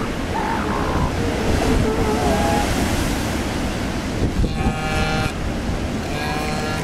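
Steady surf and wind noise on an elephant seal breeding beach, with a few short pitched animal calls from elsewhere in the colony, the clearest about four and a half seconds in and another near the end.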